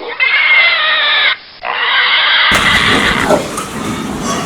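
Pigs squealing: two loud, high-pitched squeals with a short break between them. A little past halfway there is an abrupt change to a different recording, with noisier pig calls.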